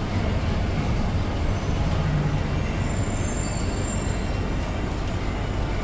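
Steady running noise heard inside a Bombardier Innovia APM 100 C801A rubber-tyred people-mover car under way: an even low rumble from the tyres and running gear, with a faint high whine in the middle.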